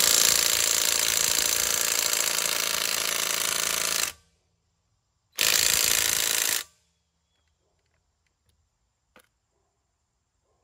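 Dayplus 21 V cordless 1/2-inch impact wrench hammering on a car wheel's lug nut: one loud run of about four seconds, a pause, then a second, shorter run of about a second, after which the nut comes loose.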